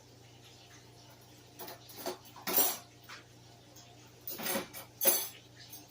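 Cutlery clinking and scraping against a plate in a handful of short bursts, starting a little under two seconds in, the loudest around the middle and near the end.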